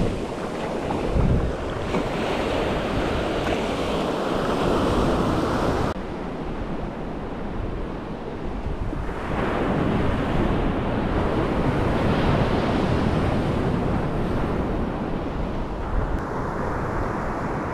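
Ocean surf breaking and washing up a sandy beach: a steady rush that swells and eases as the waves come in.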